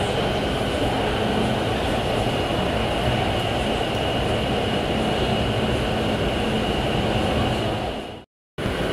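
Metro train running through a tunnel, heard inside the passenger car: a steady rumble and rush with a steady high-pitched tone over it. The sound drops out completely for a moment near the end.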